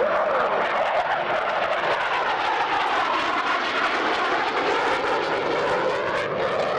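CF-18 Hornet's twin General Electric F404 jet engines as the fighter makes a low banked pass, a loud steady rush of jet noise whose tone swirls and shifts as the aircraft goes by.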